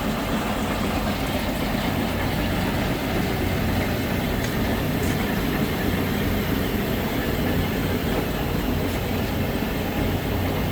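1957 Monarch model 32 NN engine lathe with its 40 hp main motor running, a steady mechanical hum and rumble with no change in speed.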